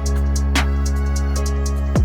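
Electronic background music: a held deep bass note under a steady ticking beat, with one stronger hit about half a second in.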